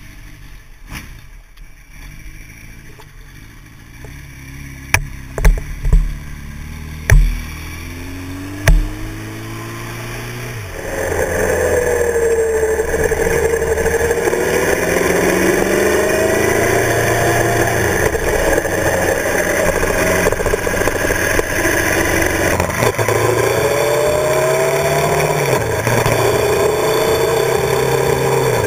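Motorcycle DOHC engine pulling away slowly, its pitch rising gradually, with about five sharp thumps partway through. About eleven seconds in it becomes louder under way, the engine note rising and falling with the throttle over steady wind and road noise.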